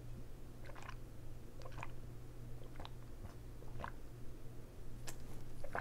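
Drinking from a plastic water bottle: soft swallowing gulps, one roughly every second, over a low steady hum.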